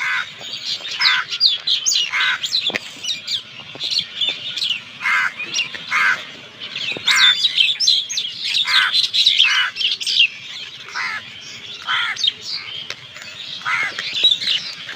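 Birds chirping and calling over and over, many quick high chirps with louder calls about once a second.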